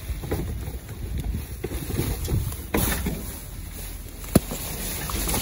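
Plastic trash bags and bubble wrap rustling and being shoved about inside a dumpster, over a low rumble, with one sharp knock about four seconds in.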